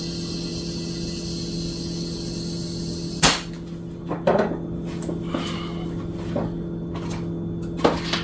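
Compressed air hissing through an air chuck into a dirt bike tire's inner tube, cutting off with a loud, sharp click a little over three seconds in. Then several lighter knocks and clicks of handling follow.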